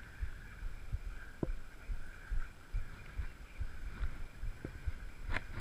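Irregular low thumps and knocks from footsteps and handling of the camera while walking, with a couple of sharp clicks, the louder one near the end, over a steady background hiss.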